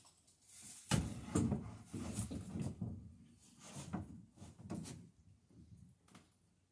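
Irregular wooden knocks, clunks and scrapes of boards and hand tools being handled, the loudest knock about a second in.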